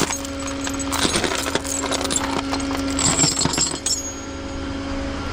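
Metal tow chain and hooks clinking and rattling in short bursts as they are handled, over a steady low hum.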